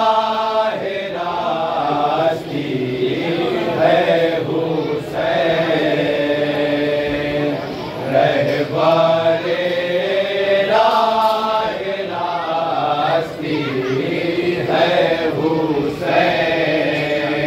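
A group of men chanting a nauha, a Shia lament, together without instruments, in long sung phrases with brief pauses between lines.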